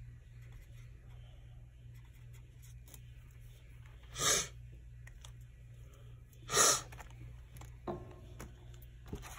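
Two short, loud bursts of breath about two seconds apart, with a couple of light knocks from handling the planner near the end.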